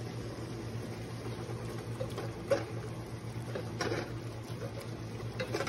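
Wooden spoon stirring sautéed water spinach in a stainless steel pot: a few soft scrapes and knocks, about two and a half and four seconds in, over a steady low hum.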